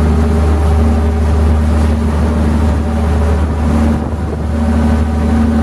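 Boat engine running steadily with a low, even hum while the boat is under way, with the wake churning and splashing behind the stern.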